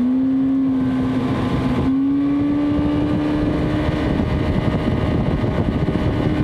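Johnson 90 hp two-stroke outboard running under way at speed, a steady engine note that steps slightly higher about two seconds in. Water and wind rush along the moving hull.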